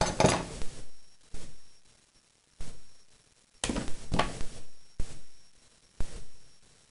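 Hairbrush swept through straightened hair in a series of strokes, roughly one a second, each starting sharply and fading within about a second.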